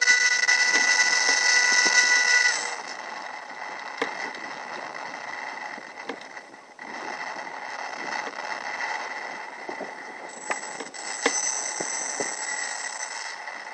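Electric motor of a Tech One Mercury foam RC plane whining at high throttle, its pitch holding steady, then cut back about two and a half seconds in. After that a quieter steady hiss with a few sharp clicks.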